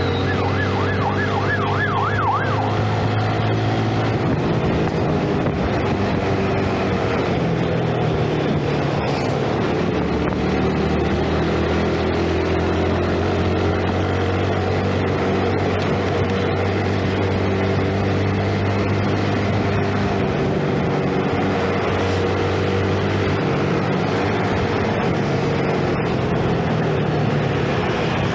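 2012 Yamaha Jupiter Z 115cc underbone motorcycle's single-cylinder four-stroke engine running under way, its pitch drifting gently up and down with throttle and road speed. A fast warbling, siren-like tone sounds over it for the first two or three seconds.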